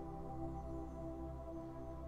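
Soft ambient meditation music: a bed of sustained tones held steady.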